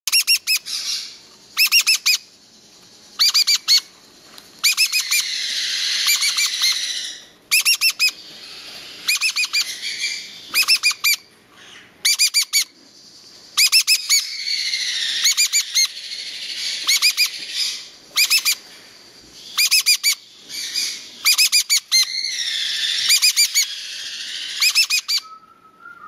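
A 13-day-old Meyer's parrot chick calling: bursts of short, rapid, high-pitched peeps, alternating with longer rasping calls, repeated over and over with brief pauses.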